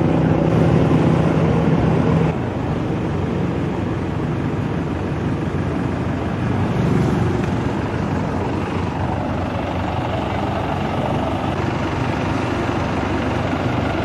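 A motor vehicle's engine running steadily. About two seconds in the sound changes abruptly to a slightly quieter, steady mix of engine and road noise.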